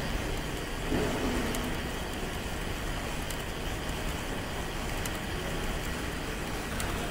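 Steady background hubbub of a busy exhibition hall, with a faint tick repeating about every two seconds.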